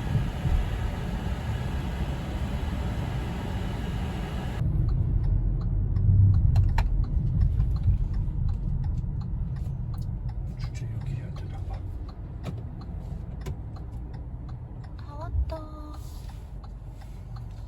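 Steady low rumble of a car on the road. It is mixed with a hissy rush for the first few seconds, then cuts suddenly to a darker rumble with scattered small clicks.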